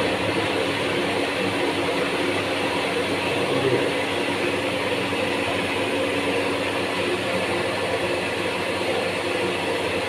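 Reverse-osmosis water system's media-filter tank running in backwash: a steady rush of water through the tank and pipes, with a constant hum alongside.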